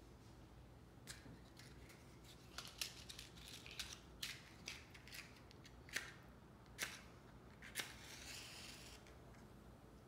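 Faint, light clicks and taps from about a second in, then a match struck near the end, flaring with a short hiss.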